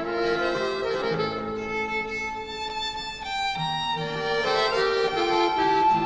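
Tango music: a violin plays the melody with vibrato over low held accompanying notes.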